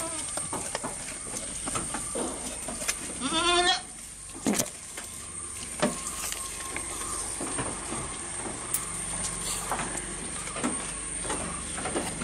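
Goats eating fresh-cut grass: chewing, crunching and rustling of the fodder in short clicks and crackles, with one goat bleating about three seconds in.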